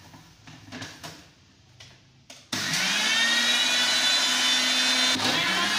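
A few light knocks as the blender jar is set on its base, then about two and a half seconds in a countertop electric blender switches on suddenly and runs at high speed with a steady whine, puréeing watermelon chunks and mint leaves with no added water. Near the end its pitch dips briefly and picks up again.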